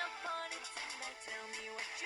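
Samsung Galaxy phone ringtone playing: an electronic melody of stepped synth notes over a light ticking beat.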